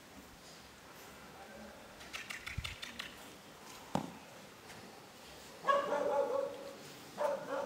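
French bulldog puppy giving two short, high-pitched barks near the end. There is a single thump about four seconds in, as a ball is kicked.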